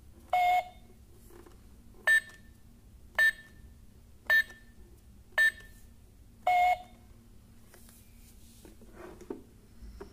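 Keypad beeps from a Doraemon electronic coin-bank safe while a new password is set: a longer beep as the * key is held, four short key-press beeps about a second apart for the four-digit code, then a longer confirming beep as # is pressed.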